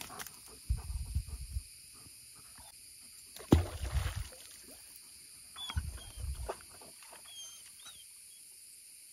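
A hooked fish thrashing and splashing at the water's surface as it is reeled toward the shore, in three bursts: about a second in, a sharper, louder one at about three and a half seconds, and a last one near six seconds.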